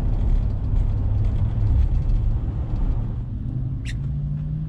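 Road and engine noise heard inside a pickup truck's cabin while driving on wet pavement: a steady low rumble. A steady low tone joins it late on, and there is one short click just before the end.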